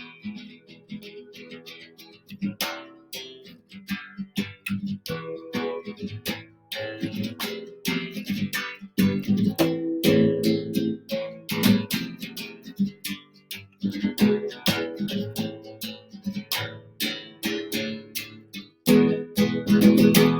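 Guitar-led instrumental break of a rock ballad, without singing: a guitar plays a quick run of plucked notes over a fuller backing.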